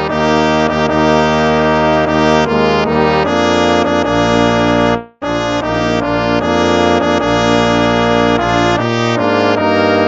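Instrumental hymn played on brass instruments in sustained chords, breaking off for a moment about halfway before going on.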